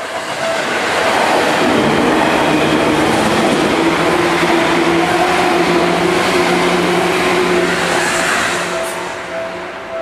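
Eight-car Seibu 2000 series electric train passing close by at a level crossing: a loud rush of wheels on rail with a steady motor hum, swelling about a second in and fading from about eight seconds. The crossing's pulsing alarm tone sounds at the start and again near the end.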